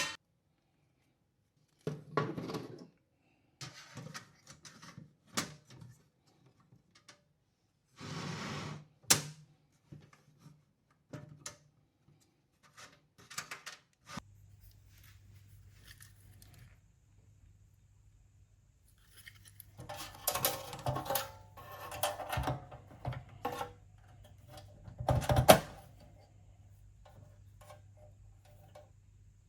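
Hands handling and fitting metal chassis parts at a workbench: scattered knocks, clicks and short scrapes, with a busier run of clatter and one sharp knock near the end. A faint low steady hum comes in about halfway.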